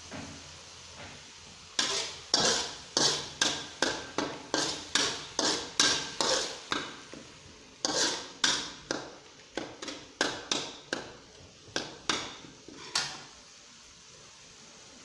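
Metal spatula stirring paste in a metal wok, scraping and knocking against the pan about three times a second. It comes in two runs with a short pause near the middle and stops a couple of seconds before the end.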